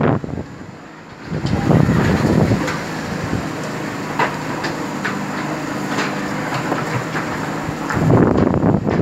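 JCB earthmover's diesel engine running steadily, with a few sharp metal clanks. Wind buffets the microphone in loud gusts about two seconds in and near the end.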